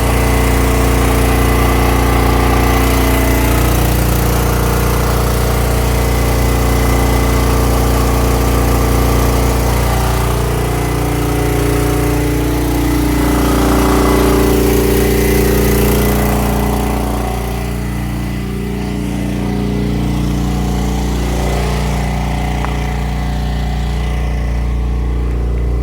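Black Diamond portable gas generator's engine running steadily, its note shifting slightly about halfway through.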